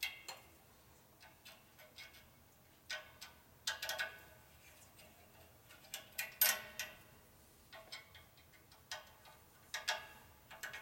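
Irregular metallic clicks and clinks, several ringing briefly, from a wrench working on the cylinder head bolts of an air compressor pump.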